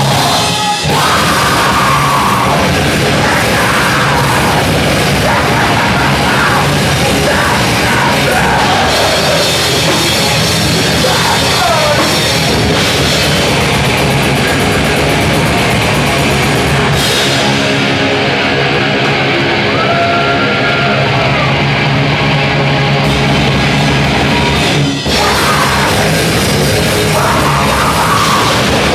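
Loud heavy rock music from a band with a drum kit, running steadily, with a brief dip about 25 seconds in.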